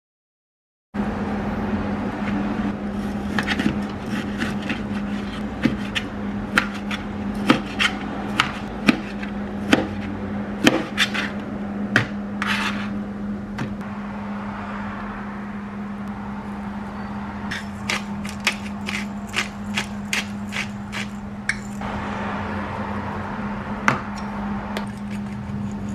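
A kitchen knife cutting raw chicken breast into cubes on a plastic cutting board, its blade knocking the board in irregular sharp taps, over a steady low hum. Near the end comes a soft rustling as dried basil is shaken from a shaker jar over the chicken.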